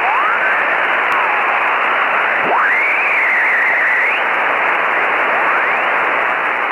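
Radio receiver static: a steady hiss with thin whistling tones gliding up and down in pitch through it, as when a shortwave receiver is tuned across signals. A whistle sweeps up sharply about two and a half seconds in, holds high, then rises again. The hiss fades near the end.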